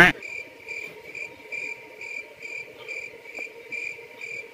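Crickets chirping steadily, about three high chirps a second. A brief loud sweep right at the start.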